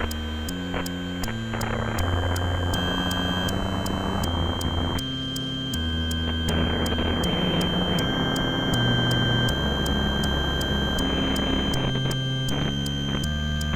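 Improvised electronic noise music played on a synthesizer. A low synth line steps from note to note every half second or so under steady high-pitched whines, a dense noise wash and an even ticking pulse about four times a second.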